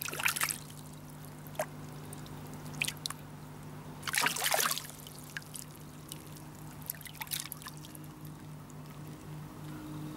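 Water splashing and dripping as fish are tipped out of a landing net into the water, with the biggest splash about four seconds in. A low steady hum runs underneath.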